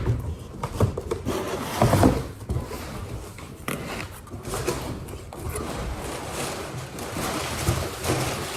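Cardboard box being opened and its packing material rustled and pulled out, with irregular knocks and scrapes of cardboard, the loudest near the start and about two seconds in.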